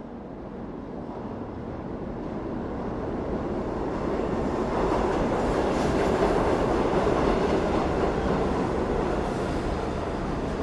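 Subway train rumbling into or through the station, its noise swelling over several seconds to a peak past the middle, then easing a little.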